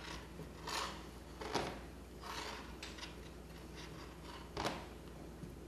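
Silicone spatula stirring and scraping thick melting chocolate in a small metal saucepan: several soft, irregularly spaced scrapes, the loudest about four and a half seconds in.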